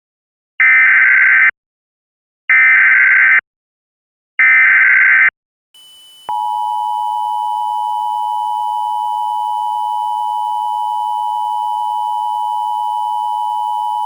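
Emergency Alert System SAME header: three identical bursts of warbling digital data tones, each just under a second long. About six seconds in, the EAS two-tone attention signal starts, a steady, loud, held tone.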